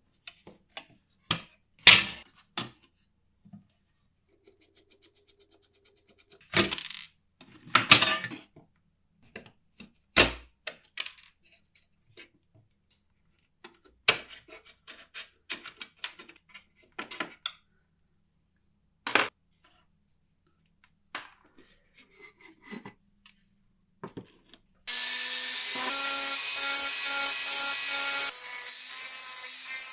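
Workshop handling of small parts and tools: scattered clicks, knocks and scraping with quiet gaps between. About 25 seconds in, a small electric motor tool starts and runs steadily.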